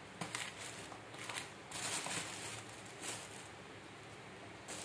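Irregular short rustles and scrapes as oil palm mushrooms are trimmed with a small utility knife, about five in a few seconds.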